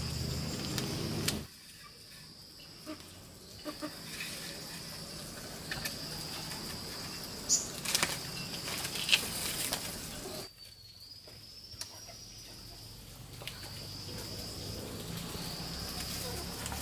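A steady high-pitched insect drone, with scattered sharp snaps and rustles around a small wood fire.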